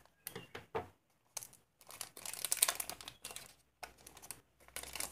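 Plastic packet crinkling and rustling in irregular bursts of crackles as hands pull a silicone suction-cup phone pad out of its sleeve, busiest about halfway through.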